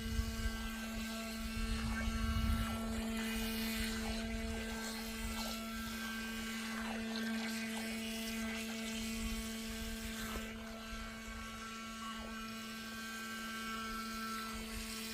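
Small electric motor and jet pump of a Sprintjet RC jet boat running with a steady whine. Some low rumbling in the first few seconds.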